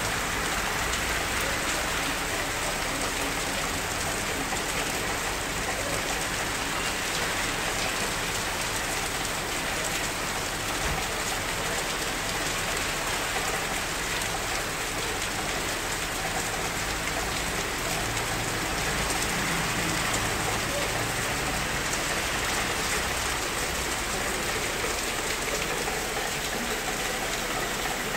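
Heavy rain pouring down in a steady downpour, an even hiss with no let-up.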